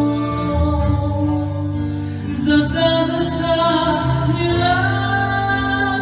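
A man singing a Vietnamese song into a microphone, backed by a small live band of acoustic guitar, violin and drums.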